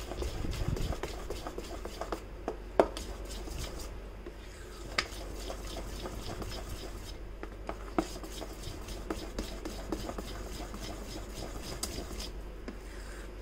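A spoon stirring thick cake batter in a stainless steel bowl: a soft wet churning with irregular sharp clicks and scrapes as the spoon knocks the metal sides.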